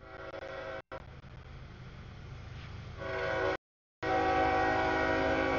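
CSX freight locomotive's air horn blowing for a grade crossing as the train approaches, a chord of several notes over the rumble of the diesel locomotive, growing louder and loudest near the end. The sound cuts out completely for a moment twice.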